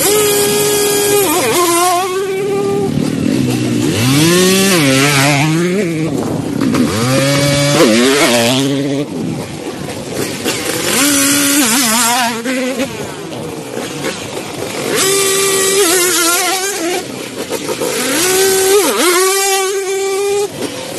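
Several small youth dirt bike engines revving hard and pulling away one after another, the pitch climbing and dropping again and again, with more than one engine running at once.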